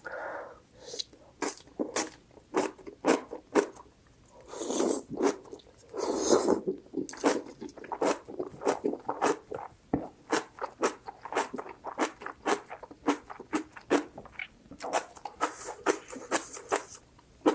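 Close-miked chewing of kimchi with rice: many quick, irregular crunching clicks, with two longer hissing sounds about five and six seconds in.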